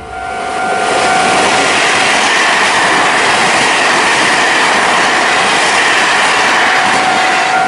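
Electric passenger train passing close by at a level crossing: a loud, steady rush and rumble of wheels and carriages going past. A steady two-note warning tone from the crossing signal is heard at the start and again near the end.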